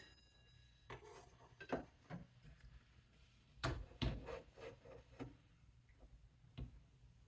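Scattered light knocks, taps and clicks of wood and tools being handled on a miter saw, with a short metallic ring fading away at the start.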